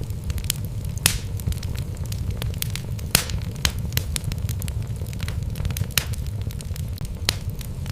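Wood logs burning in a fireplace: a steady low rumble of the flames with sharp, irregular crackles and pops, the loudest about one and three seconds in.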